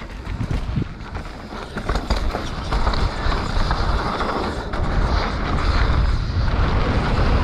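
Mountain bike riding fast down a dirt jumpline, heard from a camera on the rider: wind rushing over the microphone with tyre and drivetrain rattle, growing louder over the first few seconds.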